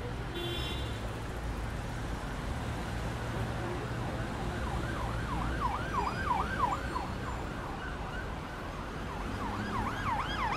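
City street traffic: a steady rumble and hiss of vehicles, with an emergency-vehicle siren in fast rising-and-falling sweeps, about three a second, from about halfway through, dropping away briefly and coming back stronger near the end.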